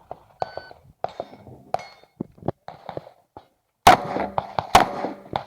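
Metallic clicks and clanks of gun handling, then two sharp gunshots a little under a second apart, with ringing after them, followed by further clicks.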